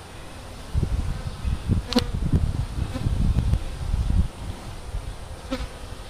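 Bees buzzing as they fly around the hive entrance close to the microphone. The buzzing swells and fades unevenly. There are two brief sharper buzzes, about two seconds in and near the end.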